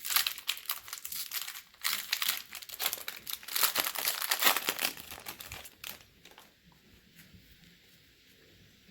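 Foil wrapper of a baseball card pack crinkling and tearing as the pack is ripped open by hand, stopping about six seconds in.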